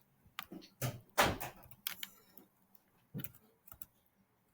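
Computer keyboard and mouse clicks: a run of irregular sharp clicks and taps, several close together about a second in and again after three seconds.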